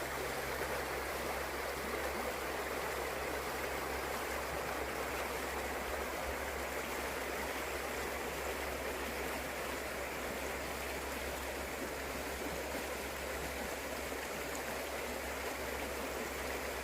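A moorland river, the River Okement, flowing and gurgling in an even, unbroken rush of water.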